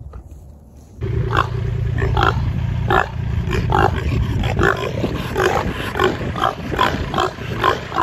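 Pigs grunting close by, a steady run of short grunts about one to two a second, starting about a second in.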